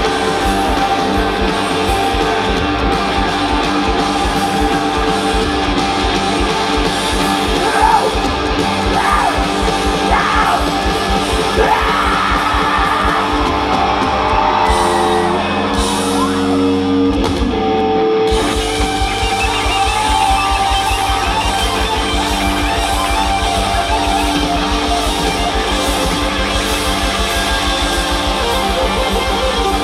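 Live rock band playing loud: electric guitars, bass and a steady drum beat, with singing in the first half. A little past the middle the kick drum drops out for a couple of seconds, then the full band comes back in.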